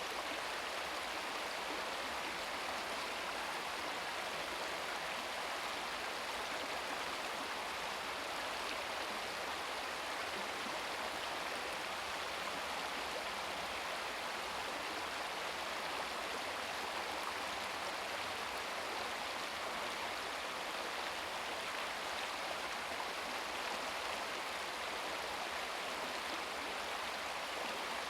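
Shallow brook babbling and splashing over rocks in a steady, unbroken rush of water.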